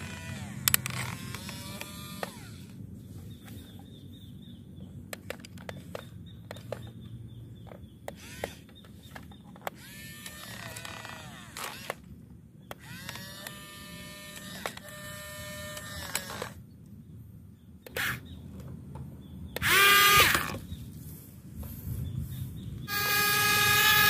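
Small electric motors of a toy RC excavator whining in short runs that rise and fall in pitch as the arm and tracks move, with light plastic clicks and knocks. A brief loud noisy burst comes about two-thirds of the way in, and about a second before the end a louder, steady sound with several held tones starts.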